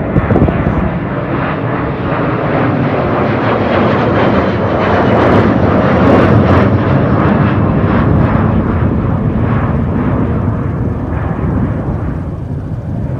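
Boeing 737-400 jet airliner taking off, its CFM56 turbofan engines at takeoff power. The roar builds to its loudest about midway and eases slightly toward the end.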